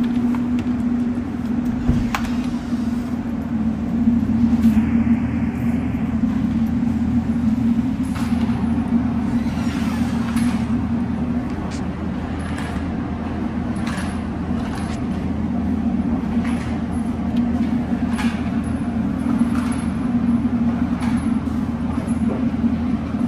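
A steady low mechanical hum, like an idling engine or running machine, with scattered brief scraping and clicking sounds.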